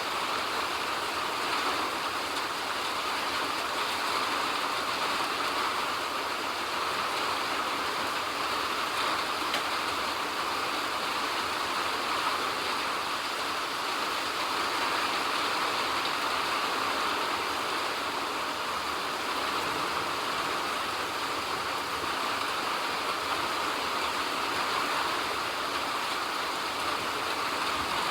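Steady rainfall: an even, unbroken hiss of rain with no single drop or impact standing out.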